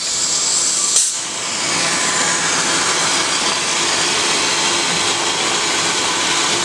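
Pneumatic fiberglass chopper gun spraying resin and chopped glass onto a boat hull: a loud, steady air hiss, with a sharp click about a second in.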